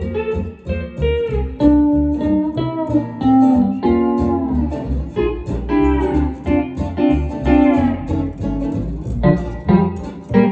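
Double-neck pedal steel guitar playing chords and melody, with sustained notes that slide up and down in pitch.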